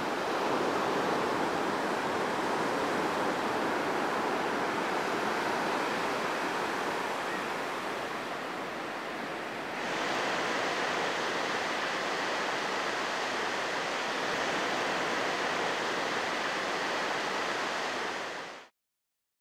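Ocean surf washing onto a sandy beach, a steady rushing wash. About halfway through it becomes slightly louder and brighter, and near the end it cuts off suddenly.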